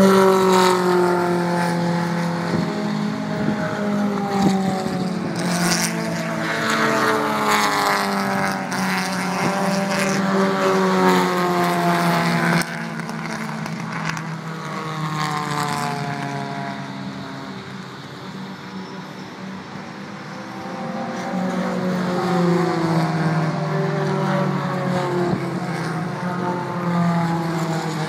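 Several vintage race cars running at speed around the circuit, their engines revving up and down through the gears as they pass. The engine sound drops away suddenly a little under halfway, fades lowest in the middle, then builds again near the end as more cars approach.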